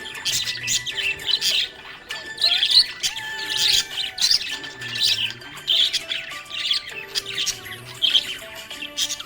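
Budgerigars chirping and chattering without pause, a dense run of quick high chirps and warbling notes.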